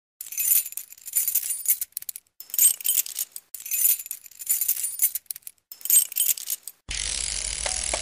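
Title-sequence sound effects: bright metallic jingling and shimmer in repeated bursts, all high in pitch with no bass. About seven seconds in, they give way to a fuller, steady sound with deep bass.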